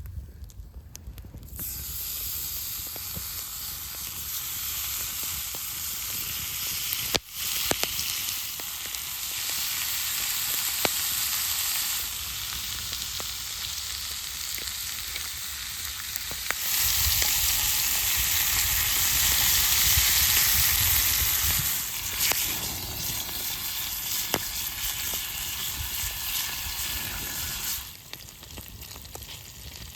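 Food sizzling as it fries in a cast-iron pan, starting about two seconds in and dropping away shortly before the end, rising and falling in level several times along the way.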